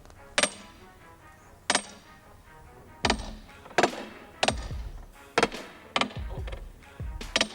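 A series of about nine sharp, separate blows of a tool striking something solid, unevenly spaced and coming faster in the second half, the later ones with a low thud under them.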